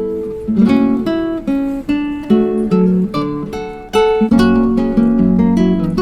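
Background music: acoustic guitar picking a melody over held chords.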